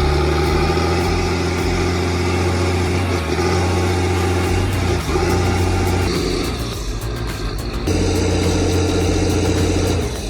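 A large vehicle engine running steadily, its pitch rising a little near the start, with its tone shifting about six and eight seconds in.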